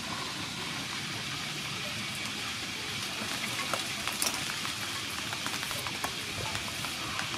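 Steady outdoor hiss with a run of small clicks and scrapes starting about two seconds in: a cucumber being trimmed and peeled with a hand peeler over a metal tray.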